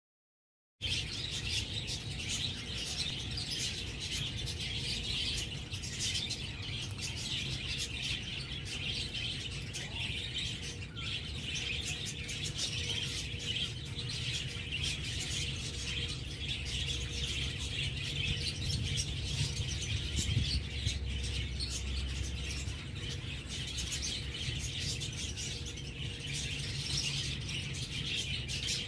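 Small birds chirping continuously in a dense chorus, over a low rumble. The sound cuts in abruptly about a second in, after silence.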